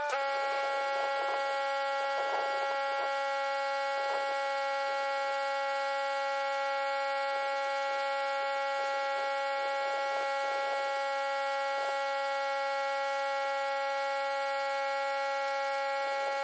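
Pressure washer running steadily with a constant high-pitched whining hum, with faint intermittent hiss over it.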